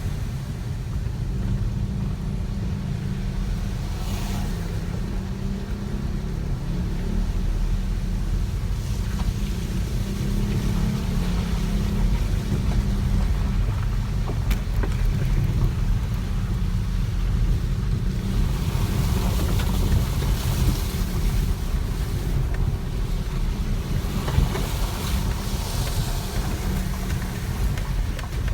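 Subaru WRX STI driving along a road: a steady low rumble of its turbocharged flat-four engine and road noise, with stretches of louder tyre or wind hiss about two-thirds of the way through and again near the end.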